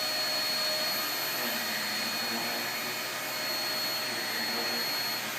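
Vacuum cleaner running steadily, an even rushing noise with a constant high-pitched motor whine.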